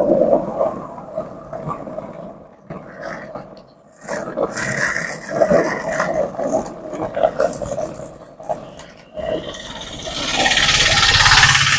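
Skateboard wheels rolling downhill on a road, a rough rumble that fades out for about a second and a half and comes back. A louder rushing hiss builds near the end.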